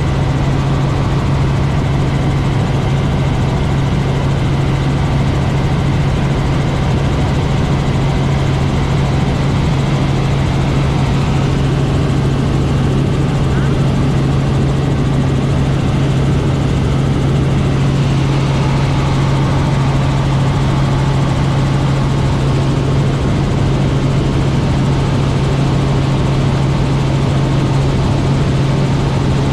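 Robinson R44 helicopter in flight: a loud, steady drone of rotor and engine with a constant low hum.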